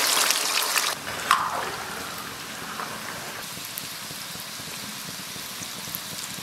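Tofu cubes deep-frying in a wok of hot oil: a loud burst of sizzling as the tofu goes in, settling after about a second into a steady, quieter crackling bubble.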